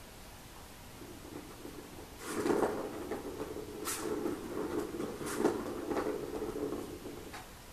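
Ball rolling around the plastic track of a round cat scratcher toy, a steady rumble from about a second in until near the end, with a few sharp knocks as a kitten bats it.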